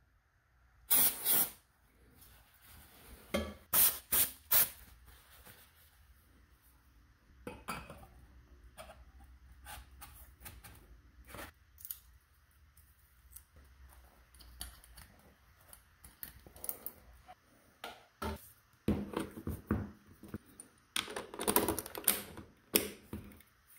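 A short hiss of aerosol contact cleaner about a second in. Then scattered metal clinks and knocks as a LeoVince Nero exhaust pipe and silencer are handled and slid together, with a denser run of knocks near the end.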